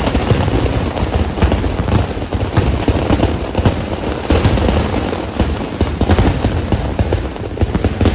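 Kerala temple vedikettu fireworks: a dense, unbroken barrage of firecracker bangs, many per second over a heavy rumble.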